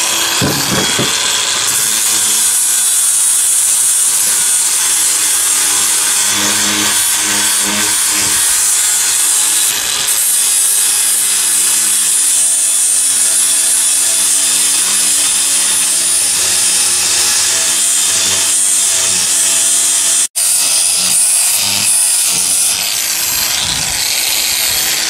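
Angle grinder running steadily, its abrasive disc grinding and sanding the surface of a piece of tree-trunk wood. The sound cuts out for an instant about twenty seconds in, then carries on.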